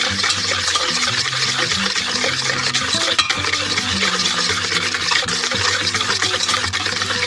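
Wire whisk beating a thin cream-and-milk mixture in a metal bowl: steady, continuous scratchy whisking with the wires scraping the bowl.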